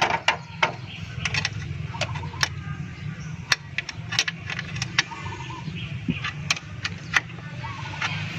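Irregular sharp metallic clicks and taps of tools and parts being handled at a car's carburetor, over a steady low hum.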